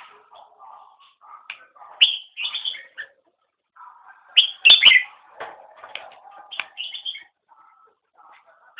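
Caged competition songbirds singing: short bright whistled and chirped phrases coming every second or so, the loudest burst about four and a half seconds in.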